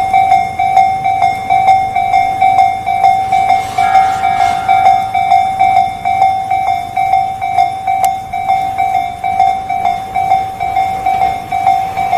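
Japanese electronic level-crossing alarm ringing: one steady pitch struck over and over, a little over twice a second.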